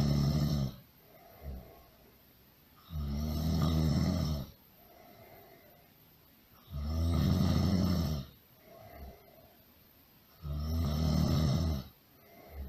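Really loud snoring, four long snores about every four seconds, each followed by a short, much softer sound.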